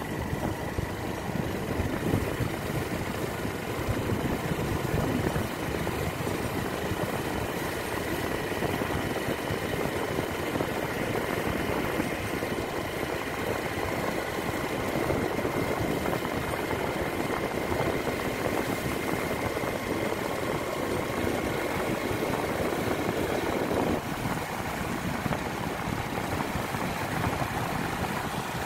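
Motorcycle engine running steadily while riding along, its low drone easing off a little near the end.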